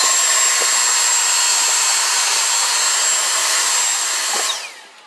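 Handheld vacuum cleaner running with a crevice nozzle, sucking teak dust and old sealant debris out of deck seams: a steady rushing noise with a high whine. It is switched off about four and a half seconds in, the whine falling as the motor spins down.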